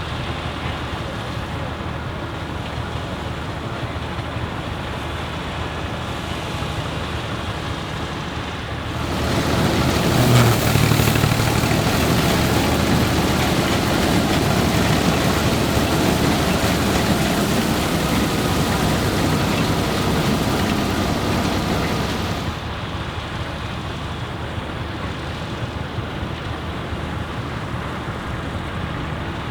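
Deutz F3L514 tractor's air-cooled three-cylinder diesel running steadily while it works a Claas Super pull-type combine threshing wheat. For about thirteen seconds in the middle the sound is louder, with more hiss.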